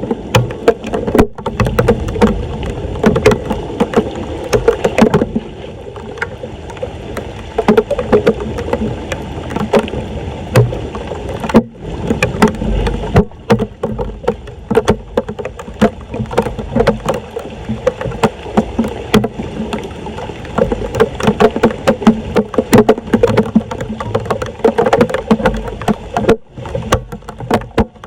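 Floodwater splashing and sloshing around a blocked street storm drain, with many irregular knocks and splashes as debris is cleared and the water drains.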